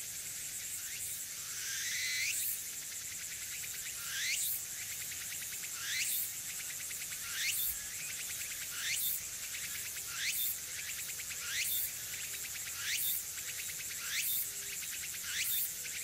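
Tsukutsukuboshi cicada (Meimuna opalifera) singing: a rising phrase repeated about once a second over a steady high background hiss.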